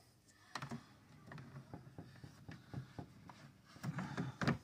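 Cabin air filter being slid and pressed into its plastic tray under the car's cowl: scattered light plastic clicks and rubbing, busier in the last second, with a sharper knock near the end as the filter is pushed down into place.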